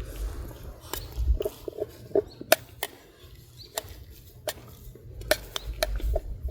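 Metal spoon clicking and tapping against a mess tin while rice is eaten from it: a dozen or so irregular sharp taps, some with a brief ring.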